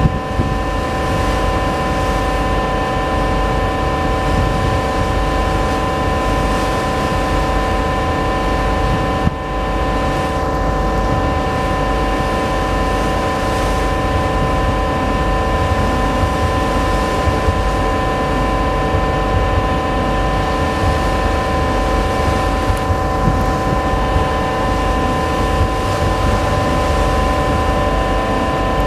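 Ship engines running with a steady drone: a low rumble with several steady humming tones. Wind and water noise lie underneath.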